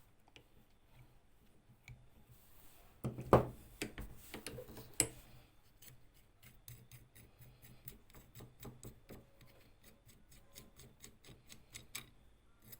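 Metal parts of an old hand drill being handled: a loud knock and short clatter about three seconds in, then a long run of quick, light clicks.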